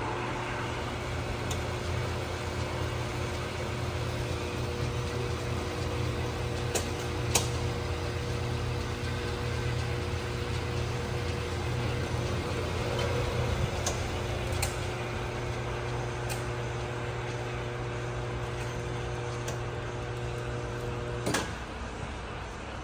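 Hardinge HL-BK toolroom lathe running under power on its variable-speed drive: a steady hum with a few steady whining tones and some light clicks. About 21 seconds in the hum and tones cut off with a click as the drive is shut off.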